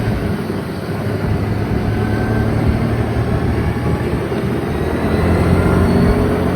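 ATV engine running while riding, a steady low drone that grows a little louder about five seconds in.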